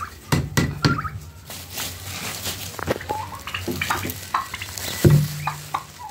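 Short calls from poultry, mixed with rustling and scraping as a woven plastic feed sack is handled.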